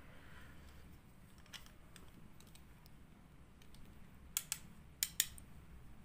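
Handling noise from a small diecast metal-and-plastic model road roller being turned over in the hands: a few small sharp clicks and taps, one about a second and a half in and a quick cluster of about four between four and five seconds in, over a faint low hum.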